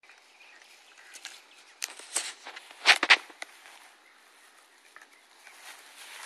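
Alaskan husky puppy rolling in grass and gnawing a stick: scattered cracks and crunches with rustling, the loudest cluster about three seconds in.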